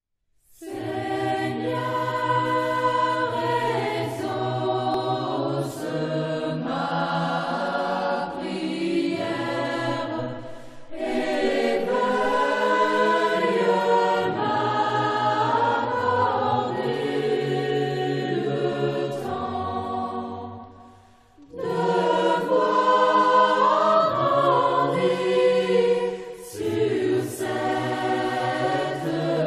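Background music of a choir singing slow, held phrases, with short breaks about ten and twenty-one seconds in.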